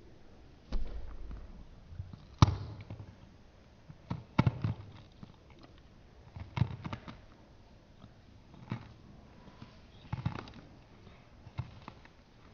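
Eating sounds as a person eats dog food from a bowl: irregular short knocks and clicks every second or two, the sharpest about two and a half seconds in.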